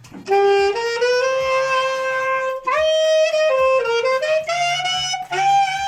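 Saxophone played with the growl, the player humming or gargling in the throat while blowing to give a rough, raspy edge, here used on separately tongued notes. A short phrase of attacked notes climbs through a scoop upward in pitch in the middle and ends on a long held note.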